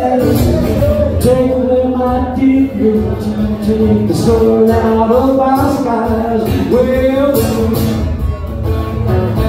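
A man singing to his own strummed acoustic guitar, a live country-style song.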